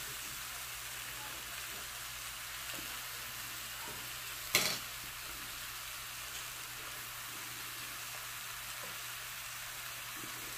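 Fish fillet, mushrooms and bell pepper sizzling steadily in a hot oiled skillet, with one sharp click a little before the middle.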